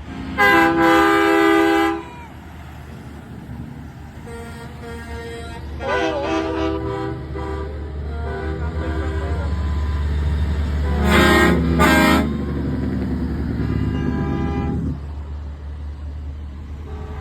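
Semi trucks sounding their air horns over the low rumble of diesel engines. A loud blast comes about half a second in, then a wavering horn, then two short loud blasts in quick succession and a fainter one.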